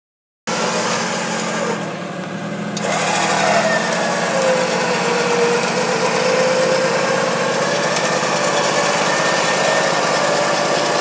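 Electric winch on the front of a Jeep Cherokee XJ whining under load as it drags the Jeep through deep mud, its pitch sagging and rising with the strain, over the steady running of the Jeep's engine.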